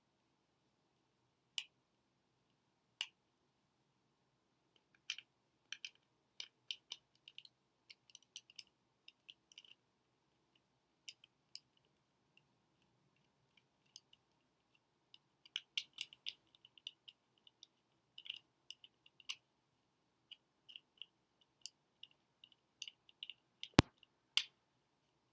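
Irregular small clicks and taps of a Black Diamond Cosmos headlamp's plastic parts being handled and pried apart, with one louder knock near the end.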